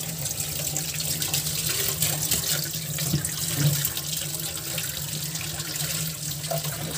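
Water running from a kitchen tap and splashing onto pieces of pomfret fish in a wire-mesh strainer as they are rinsed.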